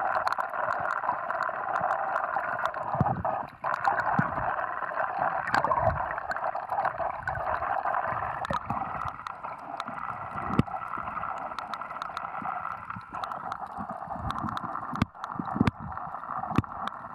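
Water gurgling and sloshing close to the microphone: a steady hiss with many irregular clicks and low thumps.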